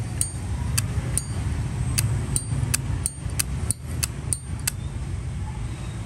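Zippo lighter's hinged metal lid flicked open and snapped shut repeatedly: about a dozen sharp metallic clicks at an uneven pace, stopping near the end. A steady low rumble runs underneath.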